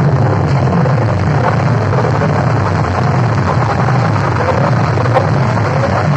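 Large DJ sound-box system blaring at high volume, its heavy bass loud and distorted, with no breaks.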